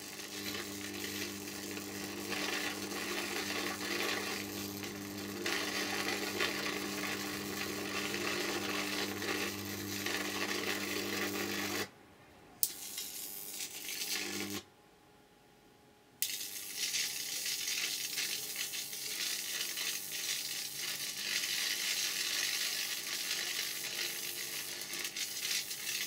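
Bug zapper grid driven by microwave oven transformers, arcing and sizzling continuously through sprigs of Leylandii caught between its wires, over a steady low hum. It cuts out abruptly twice near the middle, the second time for about a second and a half, then crackles on.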